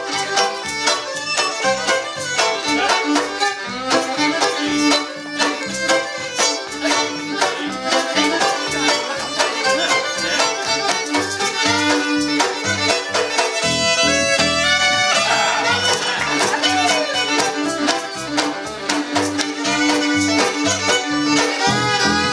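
Live folk band playing a lively contra-style tune: fiddle carrying the melody over a plucked double bass, with a steady, driving beat.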